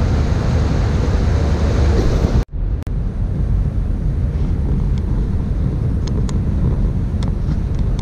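Wind buffeting the microphone on the open deck of a moving ship, over a steady low rumble. The sound cuts out for a moment about two and a half seconds in, then carries on with less hiss.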